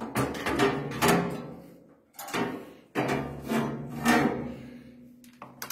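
Perforated sheet-metal cover panel on a PVC-window welding machine being handled and shifted: a run of clattering metal scrapes in two bursts, each stroke trailing off briefly.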